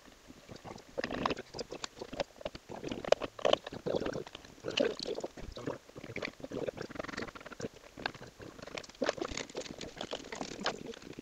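Irregular small clicks, knocks and scraping from hands working on a Printrbot 3D printer's Z axis, turning the threaded rod and fitting the wooden carriage block onto the rods.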